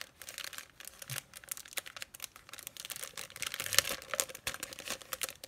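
Clear plastic packaging crinkling and rustling around a stack of card blanks as it is handled, in quick irregular crackles; the sharpest crackle comes about two-thirds of the way through.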